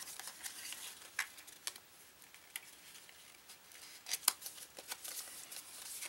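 Faint rustling and scattered light clicks of paper cards and a small paper envelope being handled and slid against the paper pockets of a handmade journal folio.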